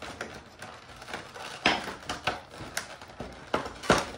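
Clear plastic packaging being handled and pulled open: several sharp plastic clicks and crackles over a light rustle, the loudest near the end.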